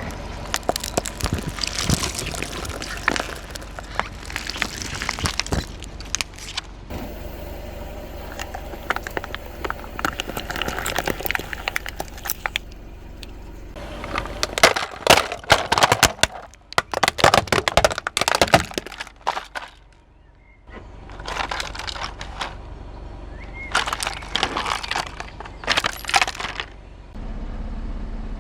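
Cracking and crunching as a car tire rolls over and crushes brittle objects, in several separate runs of dense sharp cracks, with a short lull about two-thirds of the way through.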